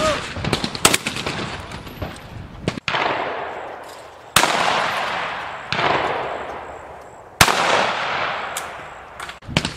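Shotgun shots at clay targets, several a second or two apart, each loud report trailing off in a long rolling echo over a second or two, with fainter distant shots in between.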